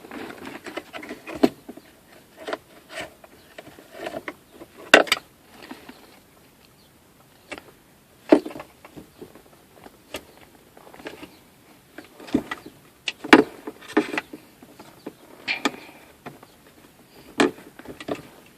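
Parts of a Chevrolet Cobalt SS's stock manual shifter assembly being handled and fitted by hand: irregular clicks, knocks and rattles of plastic and metal as the shift rod is worked into the mechanism, with the loudest knocks about 5, 8, 13 and 17 seconds in.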